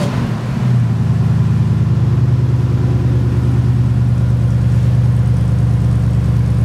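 1977 Ford Bronco's 302 V8 idling smoothly through its dual exhausts, heard close to the tailpipe. It grows louder about a second in, then holds a steady, even idle.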